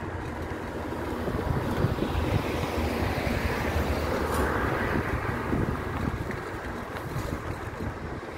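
Wind rushing over the microphone of a moving bicycle, with street traffic noise beneath. The noise swells louder about halfway through, then settles back.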